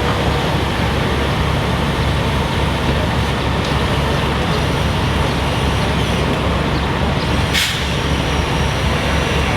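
Steady engine noise with no speech over it, and one short burst of hiss about seven and a half seconds in.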